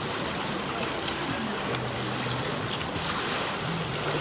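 Steady rushing background noise with faint distant voices underneath and a few light ticks.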